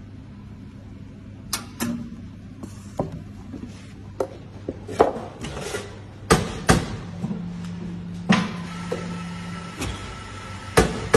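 Clatter of work at an espresso bar: a string of sharp knocks and clinks of metal equipment over a steady low machine hum, with a steadier mechanical noise and a held tone joining in the second half.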